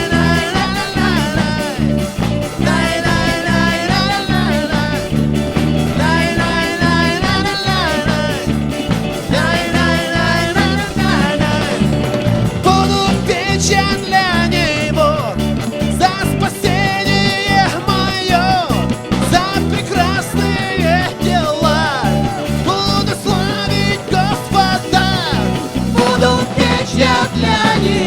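Upbeat worship music with a fast, steady beat and a lead melody over it, played by a praise band.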